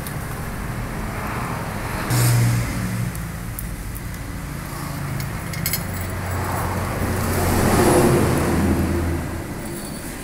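Motor vehicle engine running nearby with a steady low hum. It rises briefly about two seconds in, then swells to its loudest around eight seconds in as the vehicle passes, and fades. A few light clicks sit in the mix.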